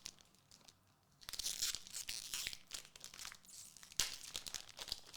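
Foil trading-card booster pack being torn open and its wrapper crinkled: a crackly rustle starting about a second in, with a sharp rip about four seconds in.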